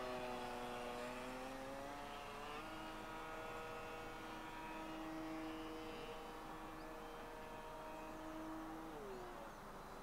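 Electric motor and propeller of a Multiplex Mentor model plane whining in flight. The pitch drops at the start, rises again about two and a half seconds in, holds steady, and drops once more near the end as the throttle is changed.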